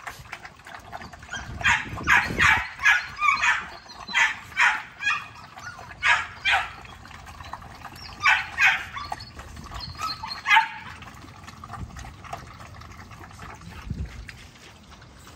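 XL American Bully puppies yelping and barking in a quick run of short, high-pitched calls, which stop about two-thirds of the way through.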